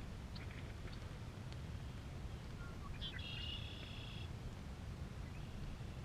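Songbirds calling with scattered short chirps; about three seconds in, one bird sings a buzzy trill lasting about a second. A steady low rumble runs underneath.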